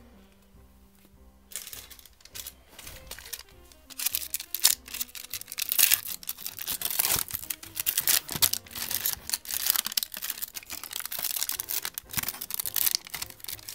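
Foil wrapper of a 1991 Upper Deck basketball card pack crinkling and tearing as it is pulled open by hand, starting faintly about a second and a half in and loud from about four seconds. Faint background music underneath.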